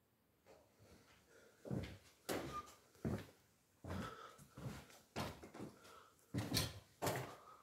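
Footsteps on bare wooden floorboards, walking at about two steps a second, starting a little under two seconds in.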